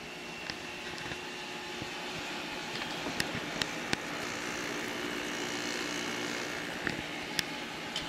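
GE 6500 BTU window air conditioner running, its fan and compressor making a steady hum and airy rush that grows slightly louder over the first few seconds. A few sharp clicks sound over the hum.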